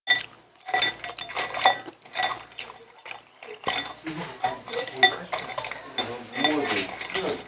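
Cutlery clinking and scraping against dishes in a quick, irregular series of sharp clinks that ring briefly, as someone eats from bowls.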